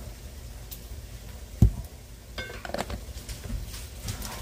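A dull thump about one and a half seconds in, then a spatula clinking and scraping against a stainless steel skillet as crumbled sausage is stirred, with brief metallic rings.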